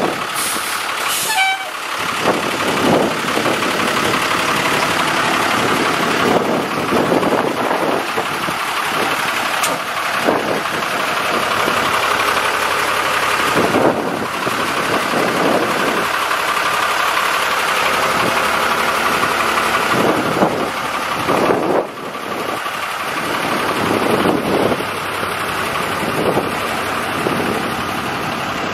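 Steady engine noise running on loudly, with a short rising tone about a second in.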